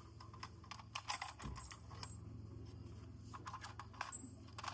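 Small metal conduit fittings being handled: light metallic clicks and rattles scattered in irregular clusters, over a faint steady low hum.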